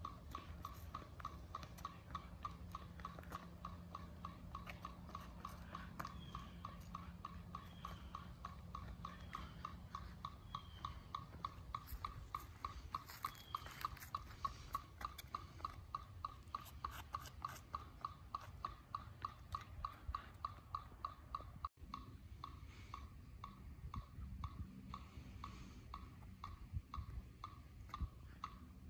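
Metronome clicking at 200 beats per minute, a short high tick about three times a second, keeping time for a marching exercise.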